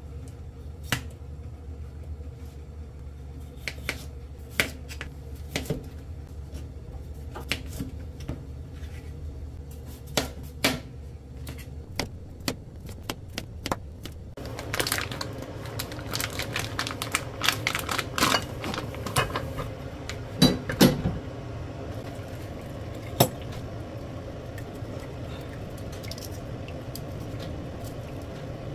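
Dishes and utensils clinking and knocking in irregular sharp clicks, with a low steady hum under the first part that stops about halfway through. In the second half the clatter gets busier over a steady hiss.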